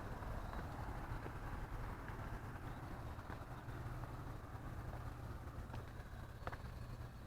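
Steady low rumble of a vehicle engine or traffic, with a few faint clicks near the end.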